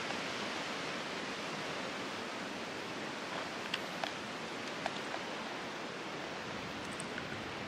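Steady rush of wind noise, with a few faint short clicks about halfway through.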